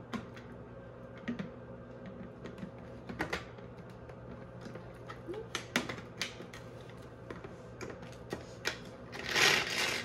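Tupperware Power Chef pull-cord chopper being pulled again and again, its cord mechanism and spinning blades making short irregular clicking strokes as it chops carrots, celery and onion. Near the end comes one longer, louder pull.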